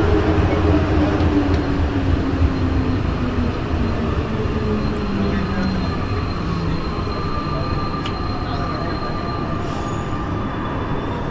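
Santiago Metro NS-93 rubber-tyred metro train running, heard from inside the car, with the whine of its traction motors falling steadily in pitch as the train slows into a station. The running noise eases off gradually, and a higher steady whine holds through the later part.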